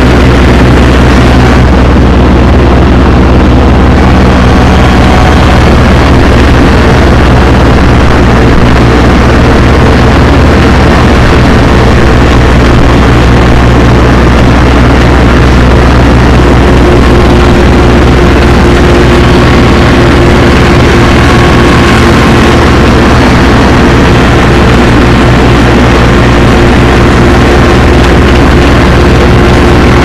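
Compact tractor's engine running steadily under load while mowing grass: a loud, constant drone with no change in pace.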